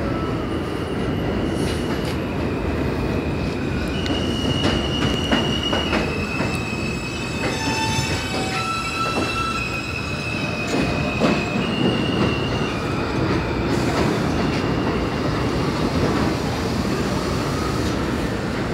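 R160A New York City subway trains running on the elevated steel structure: a steady heavy rumble, with wheels clicking over rail joints. From about four seconds in to about twelve seconds, the arriving M train's wheels squeal in several high, steady tones as it comes in along the platform.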